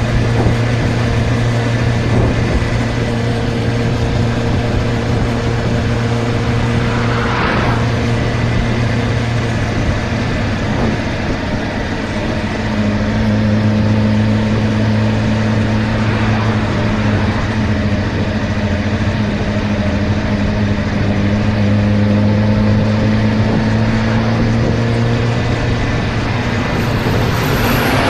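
Suzuki GSR 600's inline-four engine running steadily at riding speed, with wind rush over the bike. Around twelve seconds in the engine eases off briefly, then pulls harder again.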